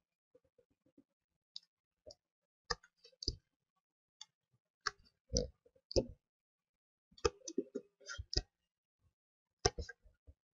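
Computer mouse clicking, irregular single clicks with some coming in quick clusters.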